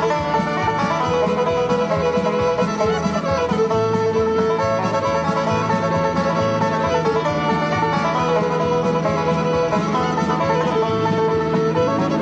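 Bluegrass square-dance tune led by banjo, with guitar and fiddle, playing steadily.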